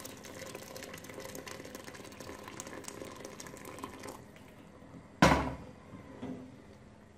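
Boiled water poured in a stream into a pot of rice, a steady splashing fill that stops about four seconds in. A sharp knock follows about a second later, then a smaller one.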